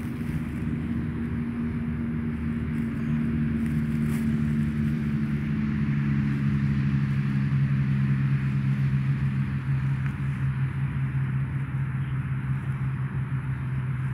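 A steady engine drone with a rushing noise above it. The low hum holds its pitch, and its higher tone fades out about two thirds of the way through.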